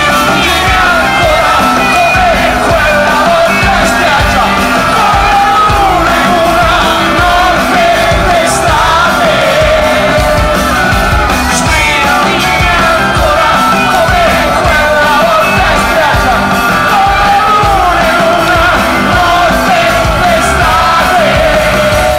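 Rock band playing live, with electric guitars, drums and keyboards, and a man singing over the music.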